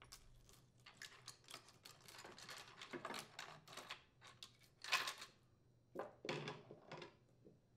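Faint clinking and rattling of a steel saw chain's links as the loose chain is pulled off the chainsaw's bar and handled, with a louder clink about five seconds in.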